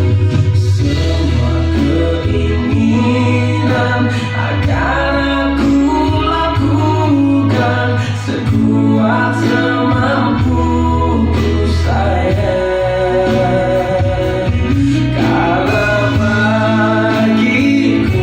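A pop song with singing over a heavy, steady bass line, played back through a home-theatre amplifier and loudspeakers with a subwoofer.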